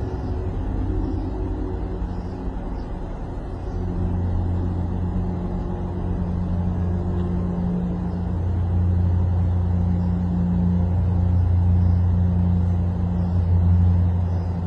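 Helicopter approaching: a steady low engine and rotor drone that grows stronger about four seconds in and again near the middle.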